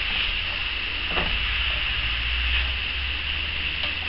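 Sliced mushrooms and chopped onion sizzling in melted butter in a frying pan, stirred with a spatula, with a few short scrapes of the spatula on the pan, one clearer about a second in.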